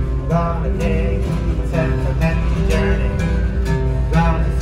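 Live acoustic guitar strummed steadily under a harmonica played in a neck rack, an instrumental break in a country-folk song.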